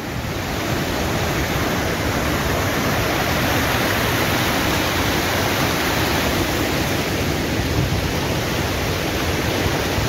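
Waterfall pouring with great force close by: a steady, unbroken rush of falling water.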